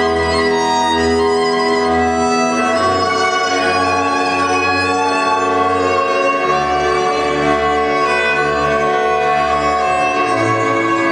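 Hungarian folk string band playing dance music: a fiddle leads over viola accompaniment, with a double bass pulsing underneath.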